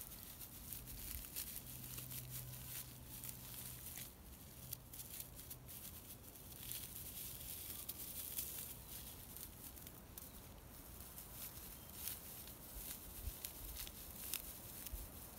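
Footsteps through twigs and leaf litter on a woodland floor: an irregular run of small crackles and rustles.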